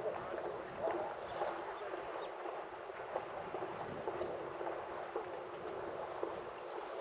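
Water lapping and splashing, with irregular small splashes and ticks over a steady hiss.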